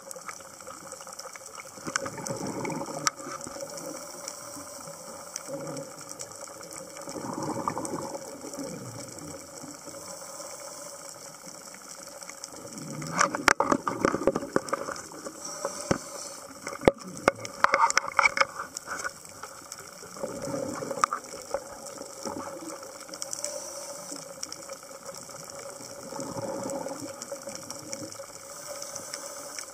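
Underwater sound on a scuba dive: a diver's regulator exhaling, a gurgling rush of bubbles about every five seconds, over scattered sharp clicks and a steady faint tone.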